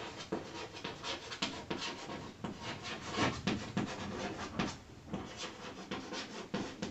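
Chalk writing on a blackboard: a run of short, irregular scratching and tapping strokes as words are written out.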